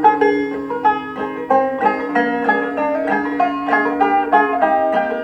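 Banjo picked in a quick run of plucked notes, an instrumental passage with a held lower note sounding underneath.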